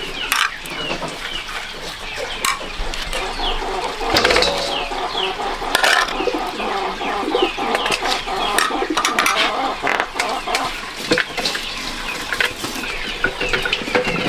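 Chickens clucking, with many short high calls throughout and a few sharp knocks.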